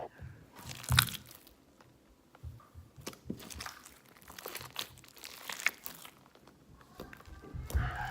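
Sticky, failed homemade slime being squeezed and pulled apart by hand: irregular short squishes, the sharpest about a second in.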